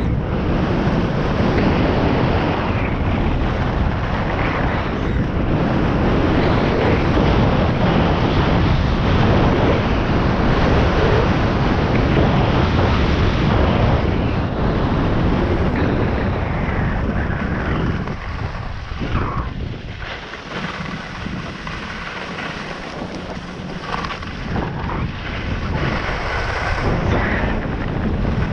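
Wind rushing over a skier's camera microphone on a fast run down a groomed piste, mixed with the skis hissing over the packed snow. The rush eases for a few seconds about two-thirds of the way through, then builds again.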